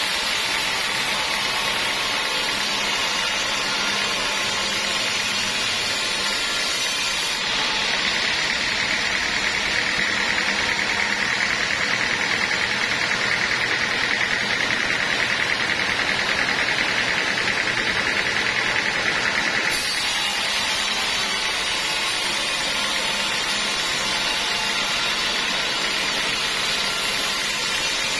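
Sawmill saw running steadily while cutting teak wood into planks. A steady higher whine sits on top for about twelve seconds in the middle.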